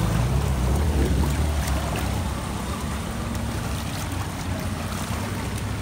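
Shallow muddy floodwater sloshing and splashing as people wade and stand in it, over a low rumble that eases after about two seconds.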